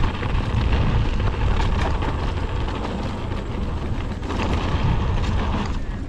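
Wind rumbling on the microphone and mountain bike tyres rolling fast over loose gravel and packed dirt, with scattered clicks and rattles from stones and the bike.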